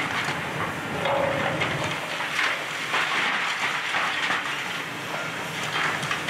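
Demolition excavators working grapples against a brick building: a continual crunching, grinding clatter of brick and debris over the diesel engines, which hum low for the first couple of seconds.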